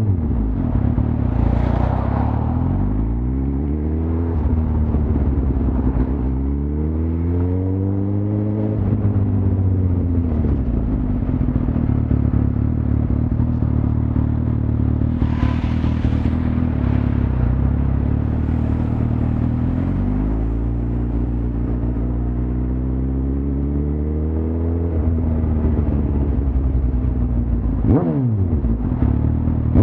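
Suzuki GSX-R1000's inline-four engine under way, its pitch rising several times as it pulls up through the revs and settling back in between, with a quick drop in revs near the end. A steady hiss of wind and wet road runs underneath.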